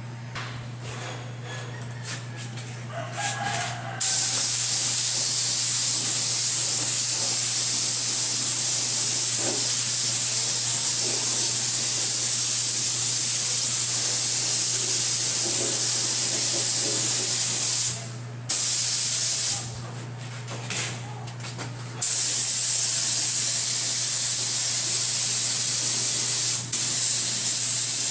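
Gravity-feed air spray gun spraying paint: an even hiss of compressed air and atomised paint that starts about four seconds in and stops and starts with the trigger, with a short break a little past the middle and a pause of about two seconds soon after. A low steady hum runs underneath.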